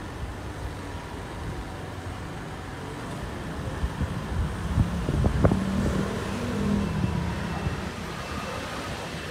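Street traffic: a steady low rumble of motor vehicles, with an engine hum growing louder about four seconds in and easing off by about seven seconds.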